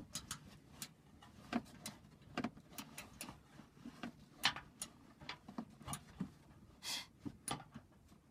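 Ratchet wrench and socket clicking in short, irregular strokes as a nut is tightened a little at a time, with a brief scraping rasp about seven seconds in.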